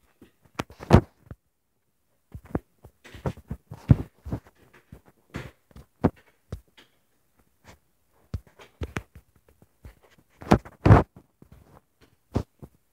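Irregular bumps, taps and rubbing of fingers on a handheld phone or tablet close to its microphone, with two louder thumps about a second in and again near the end.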